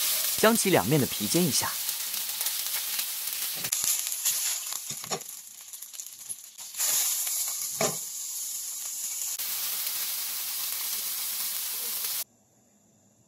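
Whole snapper frying in hot oil in a wok, its skin sizzling loudly as it sears. The sizzle flares up again about seven seconds in as the fish is turned onto its other side, then holds steady and stops abruptly near the end.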